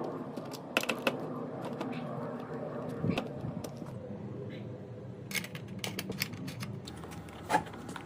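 Irregular light clicks and knocks over a steady low hum, the loudest knocks about three seconds in and near the end.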